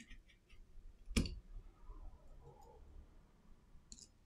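Small clicks and taps of a precision screwdriver working on a Samsung Galaxy A51's screws, with one sharp, louder click about a second in and a few fainter ticks after.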